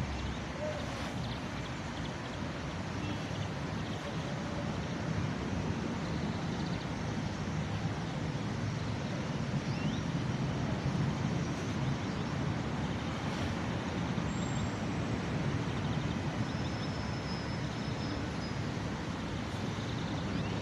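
Steady city traffic noise: a continuous rumble of road vehicles that swells slightly and eases, with a few faint, brief high-pitched sounds over it.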